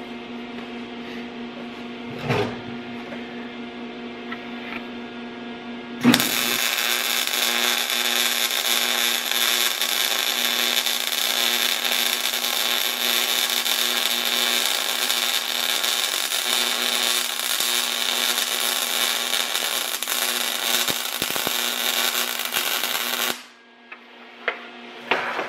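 MIG welding arc crackling and buzzing steadily, striking suddenly about six seconds in and running for about seventeen seconds before cutting off abruptly. Before the arc, a steady hum and a couple of knocks; a few clicks after it stops.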